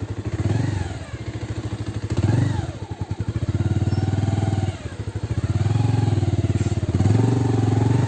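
Motorcycle engine running under load on a rough off-road track, its revs rising and falling in several swells as the throttle is opened and eased.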